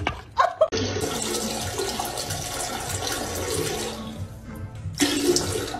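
Rushing water, a steady noise lasting about three seconds, with music over it.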